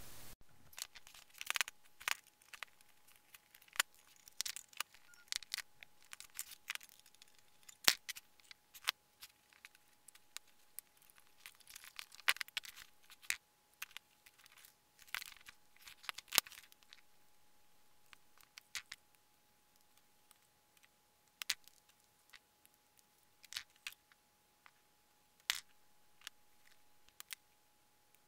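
Irregular sharp clicks, snips and rustles of wire cutters and loose cable as wires are cut and pulled from an old PC power supply, over a faint steady high hum.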